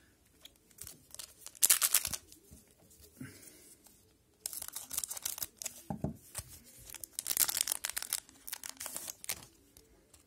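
Plastic wrapper of a 2021-22 Upper Deck Series One hockey card pack being torn open and crinkled: a short sharp rip about two seconds in, then several seconds of crackly tearing and crumpling.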